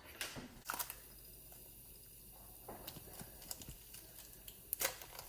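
A few light clicks and knocks of kitchen utensils and a pan being handled on a stovetop, over a quiet room background. The sharpest knocks come about a second in and again near the end.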